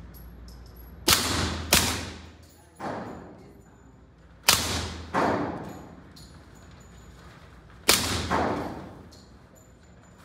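Suppressed .45 ACP pistol (Heckler & Koch HK45 Compact with a SilencerCo Hybrid 46 suppressor) firing, mostly in quick pairs of shots about two-thirds of a second apart, the pairs roughly three seconds apart. Each shot is a muffled report that echoes in the range.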